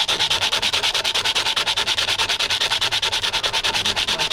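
Sandpaper rasping against an aluminium ring in a fast, even rhythm of about a dozen strokes a second.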